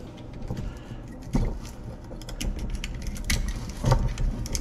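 Small metal pick scraping and clicking against the copper windings inside a circulation pump's motor housing, in irregular taps and scratches, with a few louder knocks about a second and a half in and near the end.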